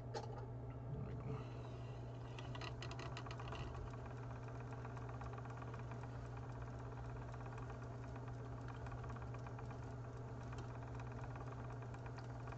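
Magpie Daedalus electric spinning wheel running steadily, its motor turning the flyer and bobbin as yarn with wool locks is drawn on, with a short run of light clicks about two to four seconds in.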